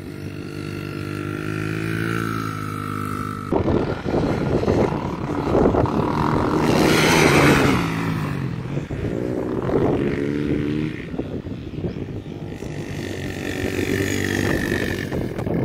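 Dirt bike engines running on a motocross track. A steady engine note gives way suddenly, about three and a half seconds in, to a louder, rougher one whose revs rise and fall, loudest about halfway. A steadier engine note returns near the end.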